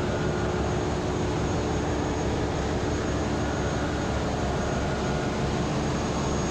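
Steady engine-room drone of running marine diesel machinery: an even rushing noise with a few faint steady tones over it.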